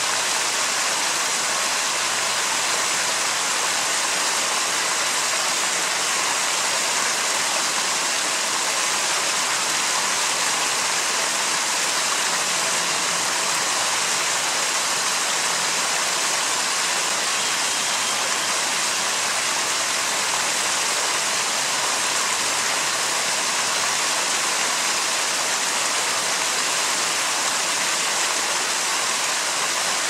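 Running water of a stream, a steady, even rush that does not change.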